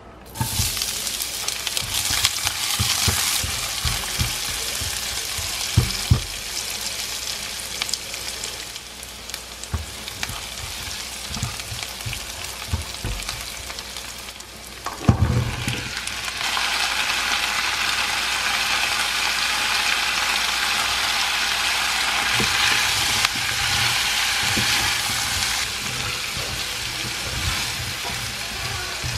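Sliced onion and then vegetables stir-frying and sizzling in hot oil in a nonstick wok, turned with a spatula that knocks against the pan now and then. About halfway through, after a sharp clatter, the sizzle grows louder and stays so.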